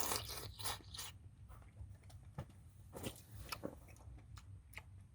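Faint, scattered clicks and scrapes of utensils and food being handled over a pot of udon soup, with a short rustle at the start.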